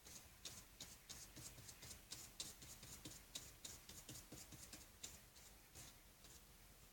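Faint, irregular light taps and scratches of a paintbrush dabbing thick, barely watered acrylic paint onto paper, several a second, in near silence.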